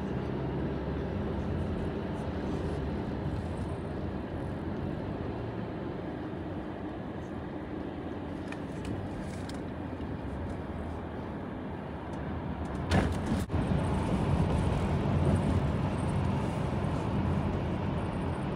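Road noise heard from inside a moving car on a wet, slushy road: a steady rumble of tyres and engine. About two-thirds of the way in there is a brief sharp knock, after which the rumble grows louder as the car drives into a tunnel.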